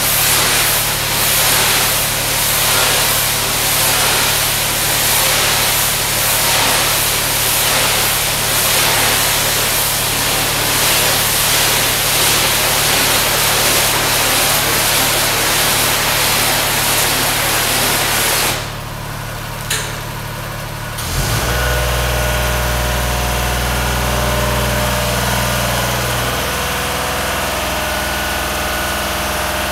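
Pressure washer spraying, a steady hiss of water over the hum of its engine. About two-thirds of the way through the spray cuts off and there is a click. Soon after, a louder, deeper engine hum takes over and runs steadily.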